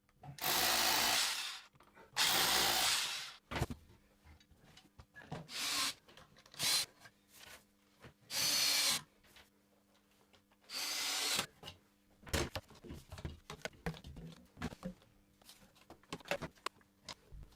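SDS drill boring holes into brick in four runs of about a second each, with a few shorter runs between. Scattered small clicks and taps follow, as of wall plugs and screws going in.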